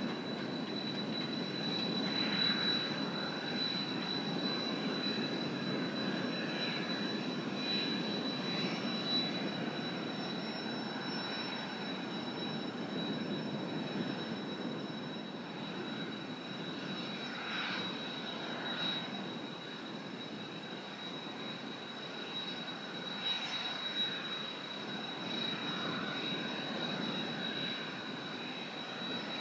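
Distant jet engine noise from the Blue Impulse Kawasaki T-4 trainers' twin turbofans as the formation flies around the base. It is a steady rumble with a thin high whine running through it, swelling and easing slightly.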